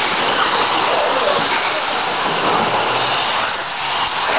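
Electric TLR 22 1/10 buggies racing on a dirt track: a steady hissing drone of motors and tyres on the dirt.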